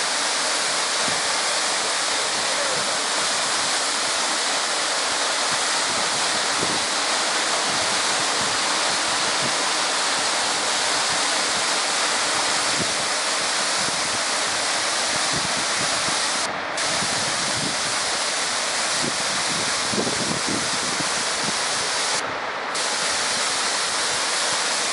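Waterfall with two streams plunging into a rock pool: a steady, loud rush of falling water. The high hiss briefly drops out twice, about two-thirds through and near the end.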